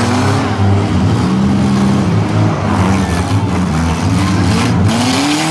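Several compact four- and six-cylinder car engines running and revving together in a demolition derby, their pitches rising and falling, with one engine revving up near the end.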